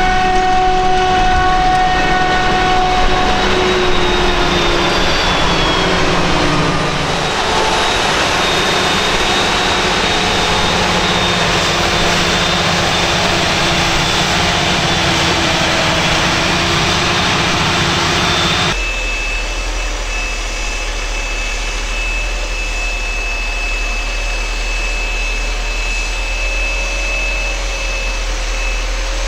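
Heavy diesel harvest machinery running at work, its engine tones shifting and gliding. About two-thirds through, the sound changes abruptly to a steadier drone with a deep hum and a thin, steady high whine.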